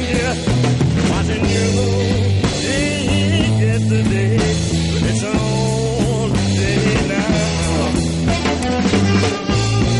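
Rock music with a steady bass line and a wavering, bending lead melody.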